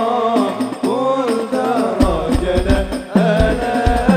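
Sholawat sung with a hadrah ensemble: a melismatic sung line over frame drums. The drums drop out for the first two seconds, then come back in with repeated low beats.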